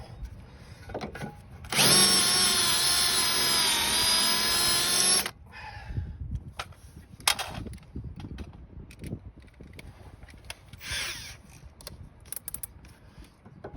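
A power drill turns an extraction bit on a stuck, stripped sway bar link fastener. The motor runs steadily for about three and a half seconds, beginning about two seconds in, and its pitch dips a little as the bit loads up before it stops. Faint clicks and knocks of tool handling follow.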